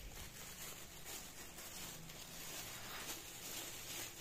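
Thin polythene wrap rustling and crinkling as it is pulled off a keyboard.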